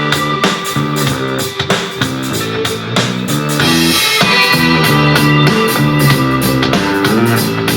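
Rock-style music with electric guitar, bass and a steady drum-kit beat, played loud through a portable Bluetooth speaker for a sound test.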